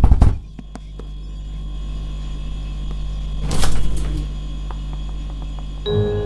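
Cartoon sound effects over a steady low mechanical hum: a short loud rushing burst at the start and another about three and a half seconds in, then a held tone comes in near the end.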